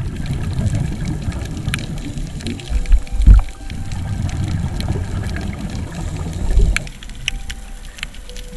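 Underwater sound picked up through a camera housing: a diver's exhaled regulator bubbles rumbling and gurgling in swells a few seconds apart, with scattered sharp clicks, growing quieter near the end.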